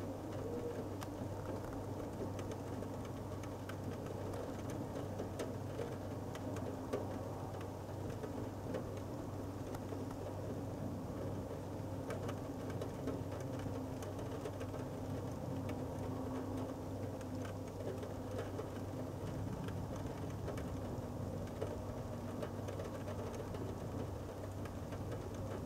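Steady rain, with scattered faint ticks of drops hitting the window glass over a constant low hum.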